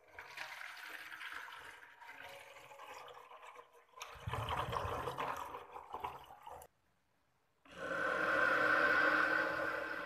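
Water poured from a plastic bottle into the cooler's cement box, splashing into the reservoir and getting fuller and louder about four seconds in, then cutting off abruptly. After a second of silence comes a steady whir of the cooler running, its PC cooling fan and water pump.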